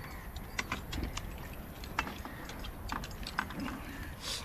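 Eating noises from people chewing chicken and tearing it by hand: irregular small clicks and smacks, several a second, over a low steady rumble.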